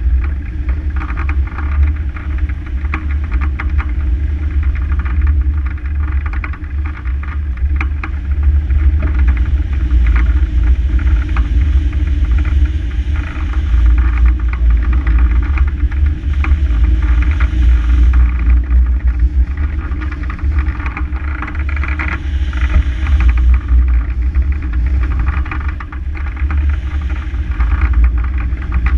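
Rushing wind on a hang glider's wing-mounted camera in gliding flight: a loud, steady low rumble with a fluttering hiss over it.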